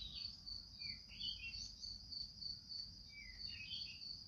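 Insects trilling steadily on one high pitch, with short bird chirps scattered through and a faint low rumble underneath.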